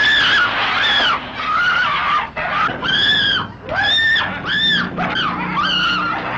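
High-pitched screaming: a person shrieking over and over in short rising-and-falling cries, about eight of them. A low steady drone comes in under the screams about two-thirds of the way through.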